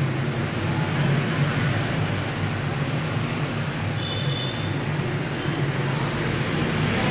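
Steady background noise: a low hum over an even haze, with a brief faint high chirp about four seconds in.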